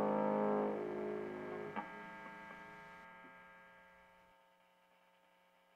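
The last chord of a distorted electric guitar song ringing out and slowly fading to near silence, with a small click about two seconds in.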